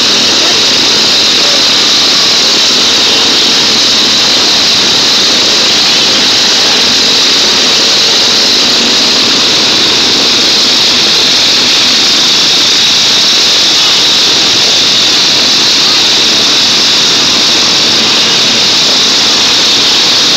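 Many riding lawn mower engines running together as the mowers are driven in a demolition derby, a loud, steady din without a break.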